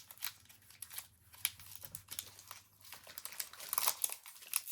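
Foil trading-card booster pack wrapper crinkling as it is handled and opened: a run of small crackles that grows denser near the end.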